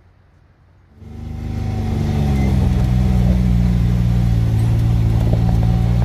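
Side-by-side utility vehicle's engine running steadily as it drives, cutting in abruptly about a second in after a faint, quiet start.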